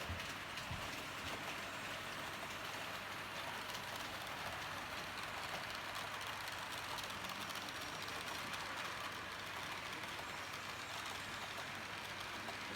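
H0-scale model train running along the track: a steady rushing rolling noise with a constant low hum and a few faint ticks.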